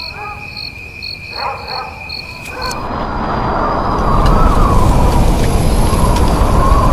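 Night insect chorus, a steady high drone with regular chirps, for the first two and a half seconds. Then a deep rumbling whoosh with a wavering tone over it swells up and stays loud, a horror-style sound effect.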